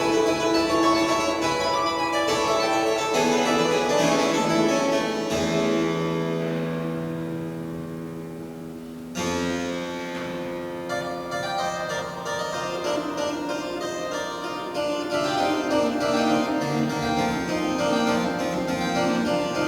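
Pipe organ playing sustained chords. The sound thins and fades in the middle, and a fresh chord enters suddenly about nine seconds in.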